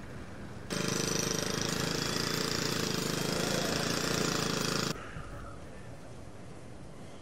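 Jackhammer hammering rapidly for about four seconds, cutting in and out abruptly, with a faint steady street background before and after.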